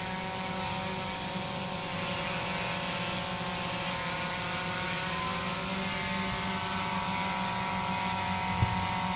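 QAV500 quadcopter's electric motors and propellers humming steadily as it hovers in GPS hold, a stack of even, steady tones. A single faint knock near the end.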